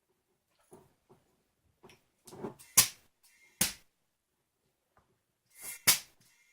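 A few short, sharp clicks and brief bursts of air, two loud ones near the middle and another near the end, as an air chuck is pressed onto a minibike tire's valve stem to fill it to about 10 psi.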